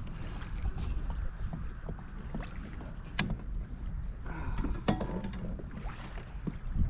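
Wind buffeting the microphone with a steady low rumble, and a few sharp knocks and clatters as a landing net and a freshly caught fish are handled on a plastic kayak's deck, the loudest about three and five seconds in.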